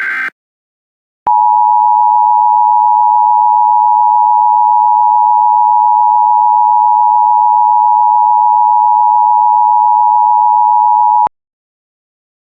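The tail of an Emergency Alert System SAME header data burst, a harsh buzzy warble, ends just after the start; about a second later the EAS two-tone attention signal (853 and 960 Hz together) sounds loud and steady for about ten seconds, then cuts off suddenly.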